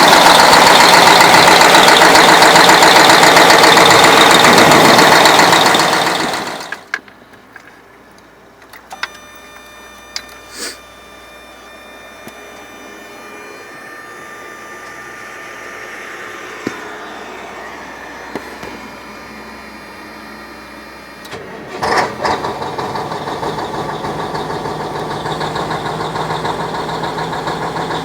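YaMZ-6581.10 diesel engine running, then shut down about six seconds in. A quiet stretch with a few clicks and a faint whine follows, and about 22 seconds in the engine is restarted and settles into a steady idle. The engine is being checked for an unidentified knock.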